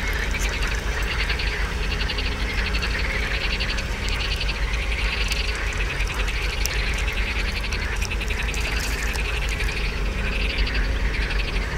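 A steady chorus of small animals calling in rapid pulsing trills that swell and fade every second or two, over a low steady rumble, with scattered clicks and splashes as a small fish is reeled in at the surface.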